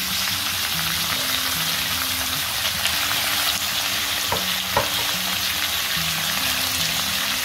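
Raw chicken breast strips sizzling in hot olive oil in a wok, a steady frying hiss, with two light knocks a little past halfway.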